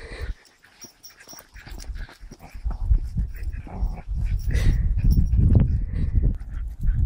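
A dog whimpering as it tugs on a horse's lead rope, over low, uneven rumbling that gets louder about two seconds in.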